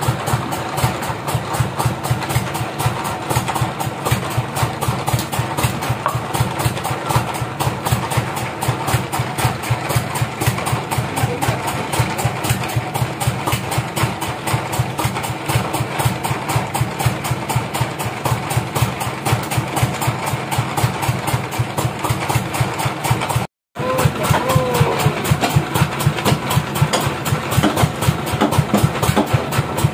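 Sawmill engine running at idle with a steady, rapid pulsing beat, while the log bandsaw is not cutting.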